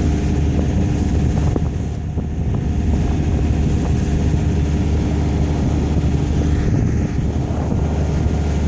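A boat engine running steadily with a low, even drone.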